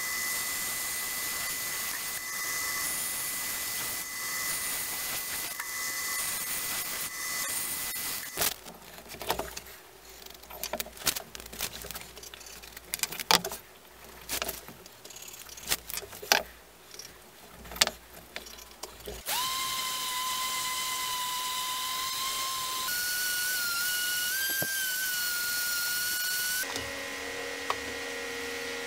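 Band saw running steadily as it cuts a walnut block. Then comes a stretch of scattered sharp knocks and taps from wood being handled on the bench. About two-thirds of the way through, a steady whine begins and steps up in pitch partway along.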